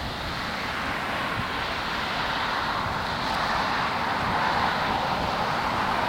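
Boeing 737-800's CFM56-7B turbofan engines at takeoff-climb thrust, a steady rushing jet noise that grows louder as the airliner climbs toward overhead. Gusts of wind buffet the microphone, mostly near the start.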